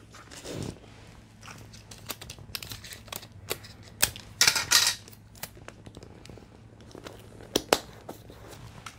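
Clear adhesive tape pulled off a handheld tape dispenser and torn, the loudest rasp about halfway through, among small clicks and crinkles of tape and cardboard being handled.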